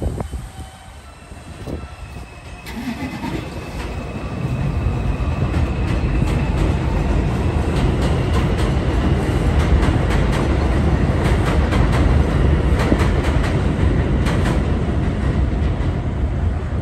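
Elevated subway train running on the steel el structure overhead: a low rumble that builds from about four seconds in and stays loud, with rapid clattering clicks of wheels over rail joints and a faint steady high whine.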